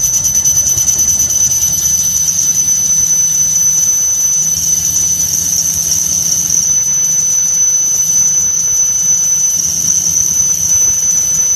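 Metal lathe turning a metal sprocket or pulley blank, the cutting tool giving a loud, steady, high-pitched squeal that wavers slightly, over the low hum of the running machine.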